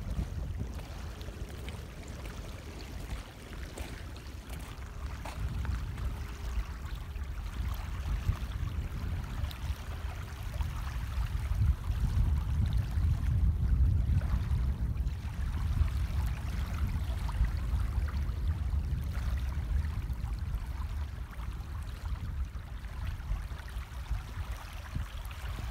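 Wind buffeting the microphone in uneven gusts over a steady rush of floodwater.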